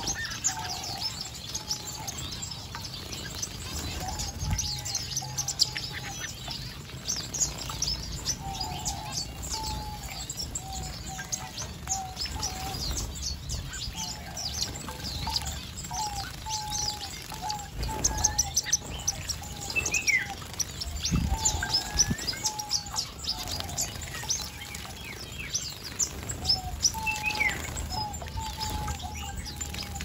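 A mixed flock of aviary finches chirping busily: many short high chirps overlapping, with a run of repeated lower call notes throughout. Occasional splashes and wing flutters as the birds bathe in a shallow water bowl.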